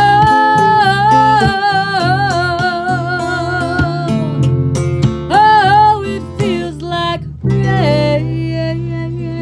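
Acoustic guitar and acoustic bass playing, with singing in long held notes with vibrato. Just past two-thirds of the way through, a final chord comes in and rings out, slowly fading.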